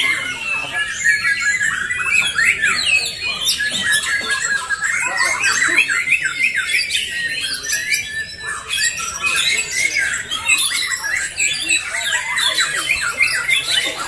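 Many caged white-rumped shamas (murai batu) singing at once in competition: a dense, unbroken tangle of rapid high whistles, trills and chattering phrases overlapping one another.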